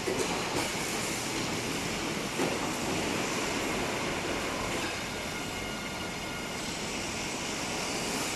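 CHANG-I CI-VCB4 veneer core builder running as it feeds and composes wood veneer sheets: a steady mechanical rattle from the machine, with a few sharp knocks in the first few seconds.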